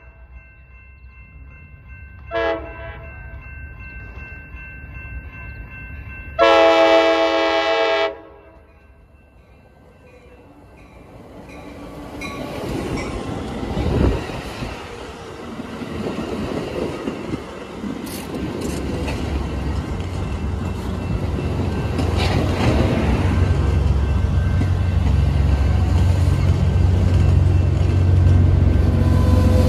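Train horn sounding a short chord blast, then a longer, louder one a few seconds later. After that a train's rumble and wheel noise build steadily louder as it draws near, with one sharp knock partway through.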